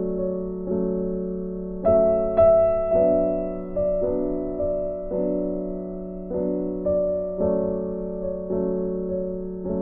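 Background music: a slow, gentle piano tune, notes and chords struck about once a second and each left to fade.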